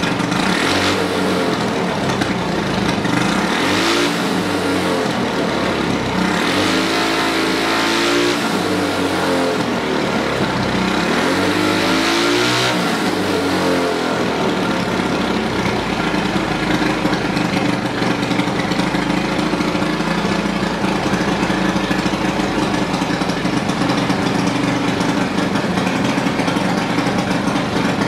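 Predator 212 single-cylinder four-stroke engine fitted with a Mikuni carburetor and running on ethanol. For the first dozen seconds it is revved up and down several times by hand at the throttle, then it settles into a steady run. The main jet has just been opened up, and the engine now sounds a lot better.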